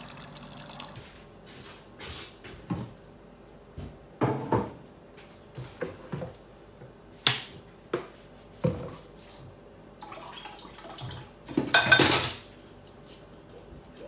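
Dishes being washed by hand at a kitchen sink: irregular clinks and knocks of crockery and a pot against the sink and dish rack, with drips and brief splashes of water. The loudest moment is a short burst of noise lasting under a second about twelve seconds in.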